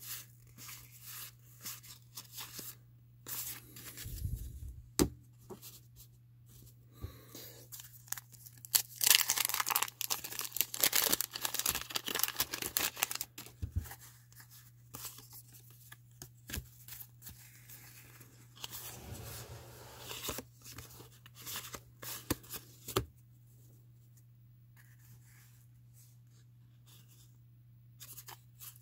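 Stack of 1987 Fleer baseball cards handled and flicked through, the card stock rasping and snapping as cards slide off one another. There is a denser, louder stretch of paper rasping and crinkling from about nine to thirteen seconds in, and the handling grows softer near the end.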